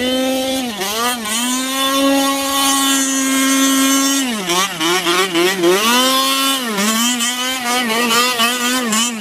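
Two-stroke petrol engine of a Losi 5ive-T 1/5-scale RC truck revving up and down while drifting on snow. It is held at high revs for a couple of seconds, then blipped quickly on and off the throttle several times.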